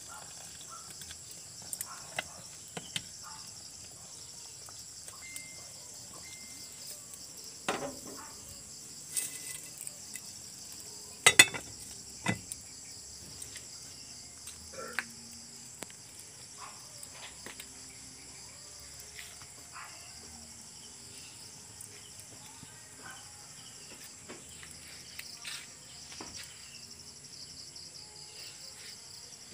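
Steady, high-pitched chirring of night insects, with scattered clinks and knocks of a metal ladle and lid against a cooking pot, the loudest about eleven seconds in.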